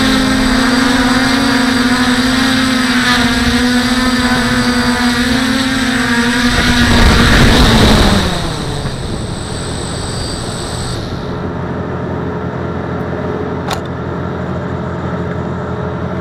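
Petrol-engined wood chipper running steadily, with a louder noisy surge about seven seconds in as its pitch falls. After that a lower, steady engine hum continues, with a single click near the end.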